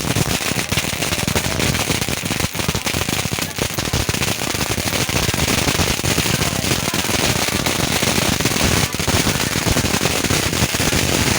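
A string of firecrackers going off in a rapid, unbroken run of loud cracks.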